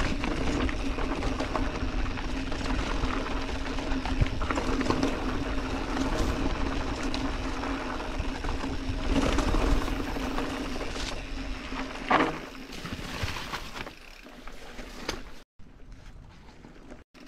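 Orbea Occam mountain bike rolling fast down a rough dirt-and-rock trail: steady tyre and rolling noise with the frame, chain and suspension rattling and clicking over bumps, and a sharp knock about twelve seconds in. The noise drops off in the last few seconds.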